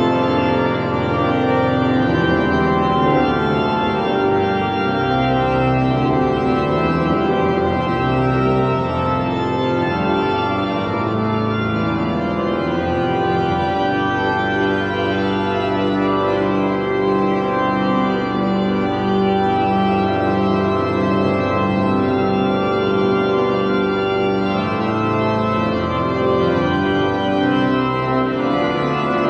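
Church pipe organ playing slow, sustained chords that change from one to the next, with no singing.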